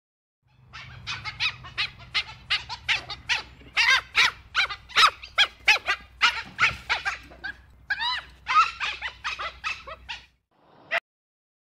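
Dhole (Asiatic wild dog) calling: a rapid run of short high-pitched calls, several a second, some rising and falling in pitch, over a low steady hum. The calls stop about ten seconds in, and one more single call follows.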